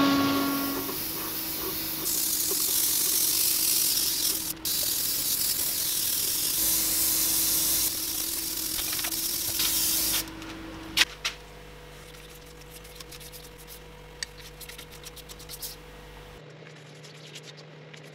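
Airbrush spraying dye onto a turned wooden vase: a steady hiss of air and spray for about ten seconds that cuts off suddenly, followed by a few light clicks and taps.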